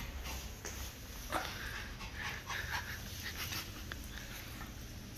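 A Pomeranian panting, with short whimpering sounds scattered through the middle, and one light knock about a second and a half in.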